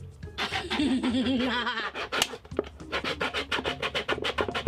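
Knife sawing and scraping through a plastic Coke bottle, a rapid run of short scratchy strokes at about five or six a second. In the first couple of seconds a wavering pitched sound comes over it.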